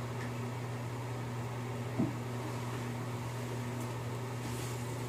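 A bath bomb fizzing in bathwater, a faint even hiss, over a steady low hum like a fan or appliance; a short bump about two seconds in.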